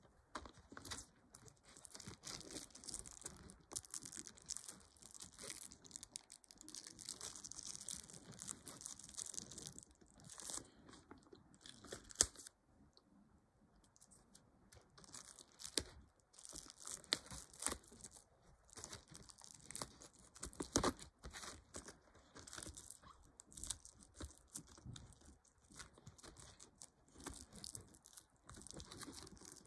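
Cellophane shrink-wrap being torn and peeled off a DVD case: crackling, crinkling plastic with small tearing sounds. A sharp click comes about 12 seconds in, then a quieter pause of a few seconds before the crinkling resumes.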